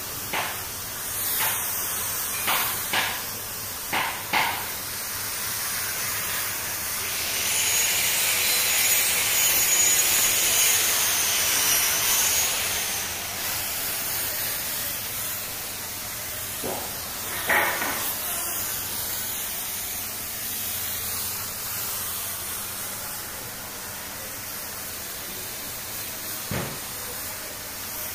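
Compressed-air spray gun hissing steadily as it sprays finish onto wooden furniture, louder through the middle stretch. Several short knocks in the first few seconds and two more later on.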